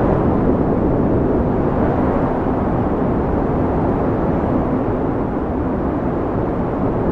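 Blizzard wind blowing: a steady, low rushing noise that eases slightly after the middle and swells again near the end.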